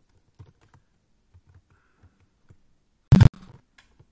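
A few light, scattered computer keyboard keystrokes, then about three seconds in a single short, loud thump, the loudest sound here.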